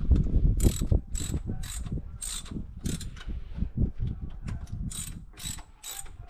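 Ratchet wrench clicking, about twice a second, as the throttle body's hold-down nuts are run down and snugged, with low knocks of handling in between.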